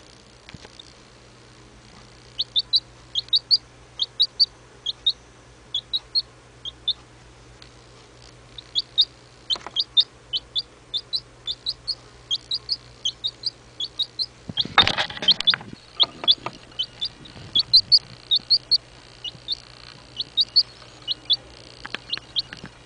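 Domestic chick a few weeks old peeping: many short, high peeps in quick runs, with a short pause about a third of the way in. A brief rustle comes about two thirds of the way through.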